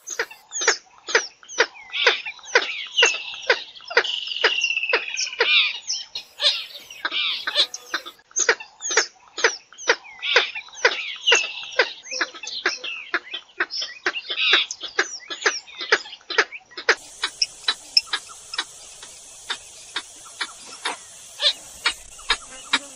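Purple gallinule calling: a rapid series of sharp, clipped notes, about three a second, broken by several longer drawn-out calls. A steady high hiss comes in about two-thirds of the way through.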